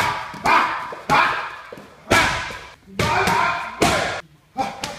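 Gloved punches and kicks landing hard on Thai pads, about six strikes at an uneven pace, each with a slapping crack followed by a fading echo from the large room.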